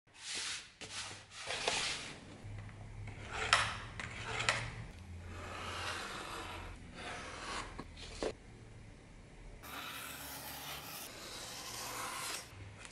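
Snap-off utility knife blade drawn through thick leather along a steel ruler: a series of scraping cuts with a few sharp clicks between them, then one longer steady cut near the end.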